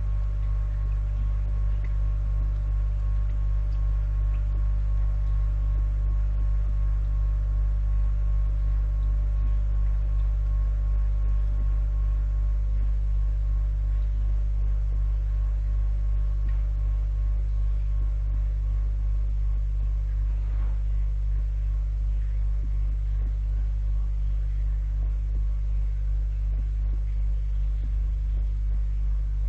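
Electric water pump running with a steady low hum, without change.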